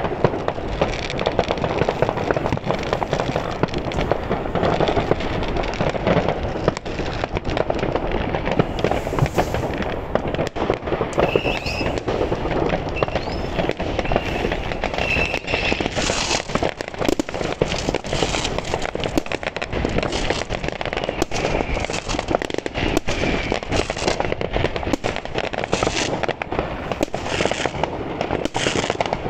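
Many fireworks and firecrackers going off at once across a town: a dense, continuous crackle of overlapping bangs, with a few short whistles around the middle.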